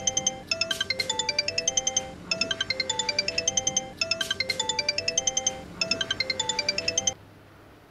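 Smartphone ringtone: a short chiming tune repeating every couple of seconds, about four times, cutting off suddenly about seven seconds in as the call is answered.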